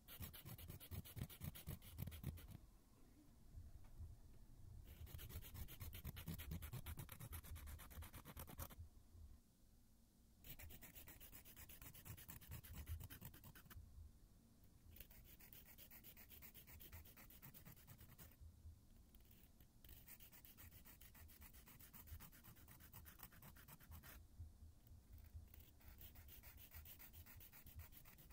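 Nail file rasping across the edges of natural fingernails in quick back-and-forth strokes, shaping the nails. The filing comes faintly in several runs a few seconds long, with short pauses between them.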